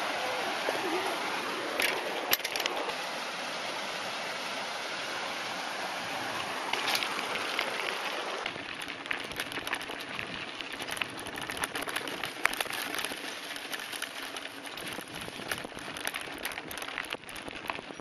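Steady rush of stream water with a couple of sharp clicks. About halfway it gives way to the crackle of mountain-bike tyres rolling over a dry dirt and gravel trail.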